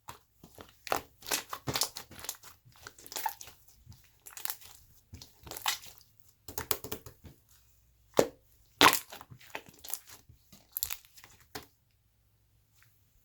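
Slime being squished and pressed by hand, giving irregular crackling clicks and pops that stop near the end.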